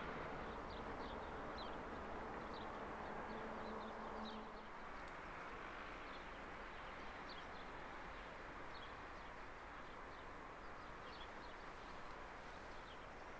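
Quiet rural outdoor ambience: scattered short, high bird chirps over a steady faint background hum. A faint low drone fades out about four seconds in.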